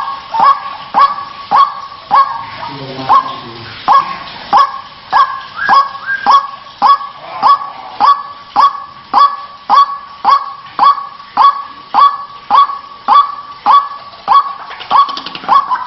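White-breasted waterhen (ruak-ruak) calling over and over, a harsh honking "kruwak" repeated about twice a second, each note dipping in pitch.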